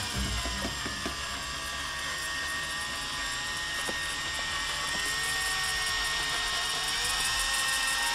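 Cordless drill spinning a mixing paddle through a cup of metallic epoxy: a steady whir whose pitch dips and recovers a couple of times as the speed changes.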